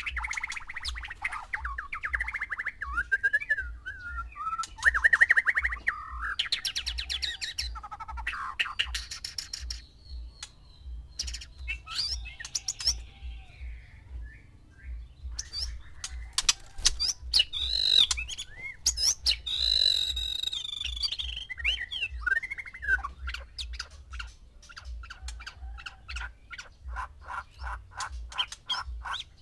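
White-rumped shamas singing: a varied run of clear whistled phrases, sliding notes and fast chattering trills, ending in a rapid series of repeated notes.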